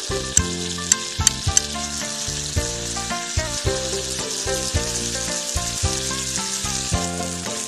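Clams sizzling on a hot stone slab over a wood fire: a steady hiss, with a few sharp pops or clicks in the first two seconds. Background music of short melodic notes plays over it.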